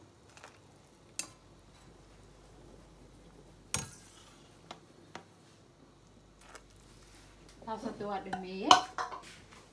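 Metal slotted spoon clinking against a pot of simmering water: a few sharp clinks, the loudest about four seconds in, then a busier stretch of knocking near the end with the loudest clank.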